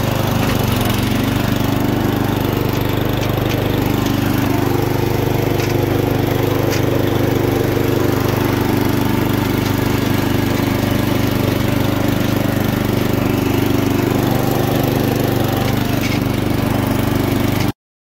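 A 1998 Murray 12.5 hp riding mower's engine running steadily under load as the mower drives, then cutting off suddenly near the end.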